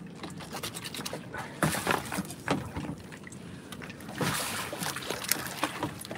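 Knife cutting through a large snapper's pectoral fins, with irregular clicks, scrapes and wet handling of the fish on a wooden cutting board, and a brief rush of noise about four seconds in.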